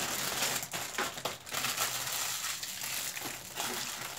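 Snack packaging crinkling and rustling as it is handled and torn open, in a run of irregular crackles.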